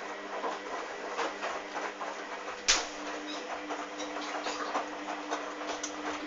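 Hoover DYN 8144 D washing machine running mid-wash: a steady motor hum with irregular clicks and knocks from the drum, one louder knock about midway.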